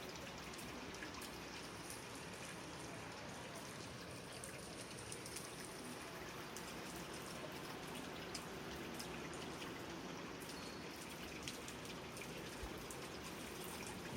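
Light rain falling steadily, with scattered drips and raindrop ticks.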